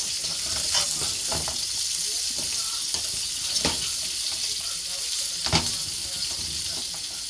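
Food frying in hot oil in a pan: a steady sizzle that starts abruptly, with scattered clicks and taps of a utensil against the pan.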